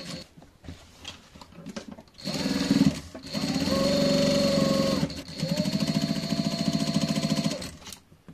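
Electric sewing machine stitching herringbone tape onto canvas in three runs, starting about two seconds in, with brief pauses between them. The motor whine rises as each run starts and carries a fast, even needle rhythm; it stops shortly before the end.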